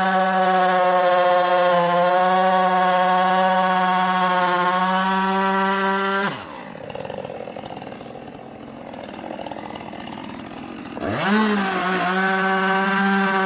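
Gas chainsaw running at full throttle while bucking up the felled tree. About six seconds in it drops to a low idle, then revs back up to full speed about five seconds later.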